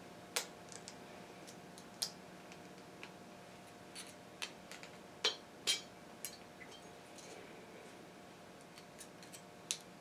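Light, irregular metallic clicks and taps as a master cylinder piston with new rubber seals is handled and worked by hand into the cylinder bore, about a dozen over the stretch.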